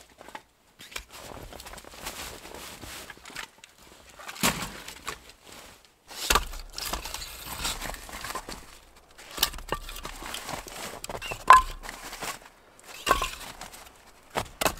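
Split firewood logs knocking together as they are handled and stacked, with crunching steps in snow and rustling between several sharp knocks.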